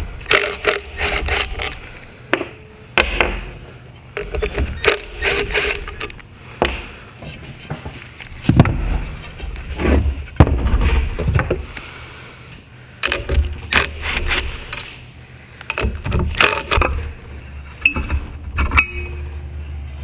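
Hand tools working the housing bolts of a diesel turbocharger on a workbench: bursts of rapid ratchet clicking with metal clinks, knocks and scrapes as the bolts are loosened.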